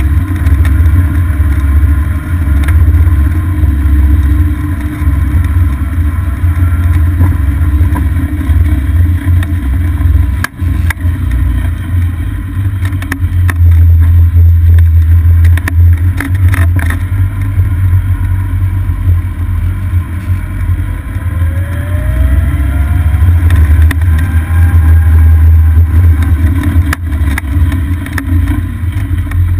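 Golf cart driving along a paved road, heard from a camera mounted on the cart: a steady low rumble of wind buffeting the microphone and the cart's running noise, with a few sharp knocks and a faint rising whine about two-thirds through.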